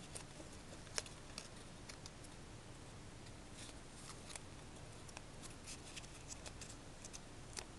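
Faint, scattered crinkles and ticks of a small folded paper strip being creased and tucked between the fingers, with one sharper tick about a second in.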